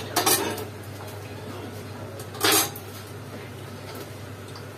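Kitchenware clattering at the stove: a quick run of clanks right at the start, then one louder clatter about halfway through, over a steady low hum.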